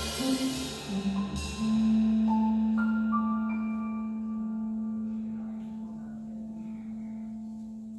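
Keyboards ending a jazz piece: a few quick notes, then a low note held while higher notes are added one by one above it. The chord sustains and slowly fades for about six seconds, stopping right at the end.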